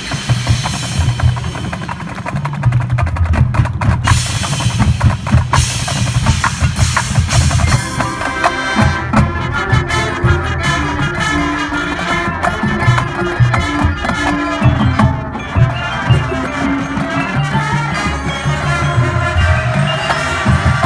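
High school marching band playing, led by its percussion: bass drums and snare drums play dense rhythmic hits and rolls, and held pitched chords from the band grow stronger about eight seconds in.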